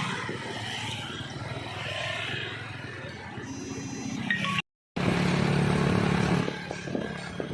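Vehicle engine running in road traffic, a steady low drone. A little past halfway it cuts out for a moment, then comes back louder for about a second and a half before easing.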